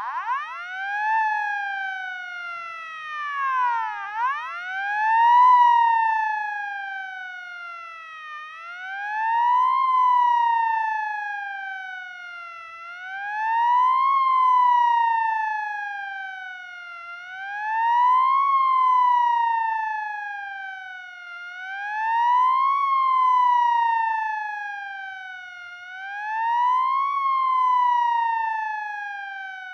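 Emergency-vehicle siren in wail mode. After an uneven swoop and a deeper dip at the start, it settles into a slow, regular rise and fall, one cycle about every four seconds, loudest at the top of each rise.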